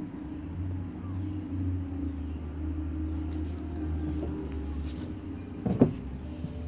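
A low rumble with a steady hum beneath it, and a brief louder sound near the end.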